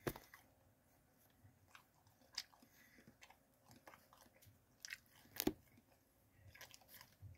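Faint chewing of a breaded frozen cheeseburger bite, with scattered soft mouth clicks and crunches. The loudest crunch comes about five and a half seconds in.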